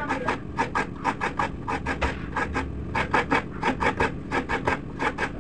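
Coconut being grated by hand on a kudkuran, a wooden bench with a serrated metal blade: a rhythmic rasping scrape, about four strokes a second, with a few brief pauses.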